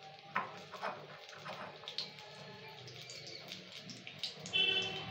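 Oil sizzling with scattered pops and crackles around a coconut fritter frying in a steel wok. About four and a half seconds in comes a brief high chirp, like a bird's.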